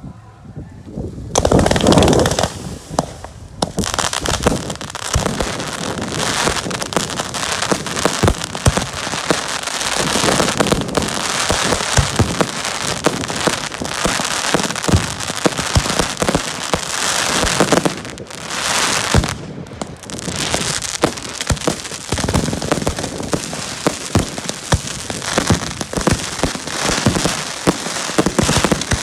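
Fireworks going off in a dense, nearly continuous crackle of many small sharp pops, with louder bangs scattered through. It starts with a loud burst about a second and a half in and eases off briefly a couple of times.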